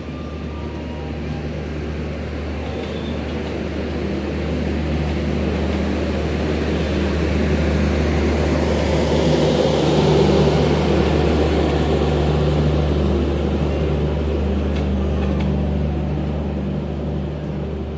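Shatabdi Express LHB passenger coaches rolling past: a steady low rumble and clatter of wheels on the rails. It builds to its loudest about halfway through and eases off near the end as the last coach goes by.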